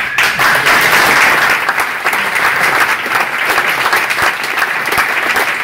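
Audience applauding, many hands clapping, starting suddenly and keeping up steadily.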